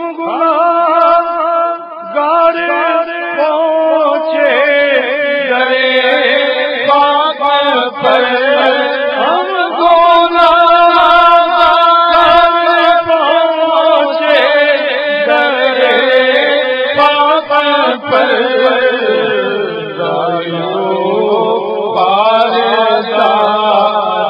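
A man reciting a naat, an Urdu devotional poem praising the Prophet, in a solo chanting voice. He holds long notes that bend and waver in ornamented runs, with only brief breaths between phrases.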